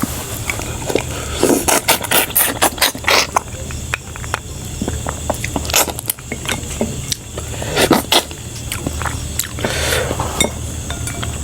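Close-up eating sounds: wet chewing and mouth noises with many irregular clicks, crackles and scrapes, over a steady low hum.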